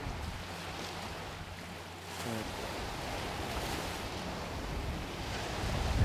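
Ocean surf washing in, with wind buffeting the microphone as a low rumble.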